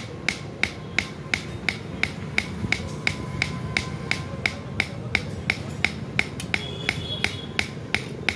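Hand hammer striking metal on a small block anvil in a steady rhythm of about three blows a second, each blow a sharp metallic clink with a brief ring.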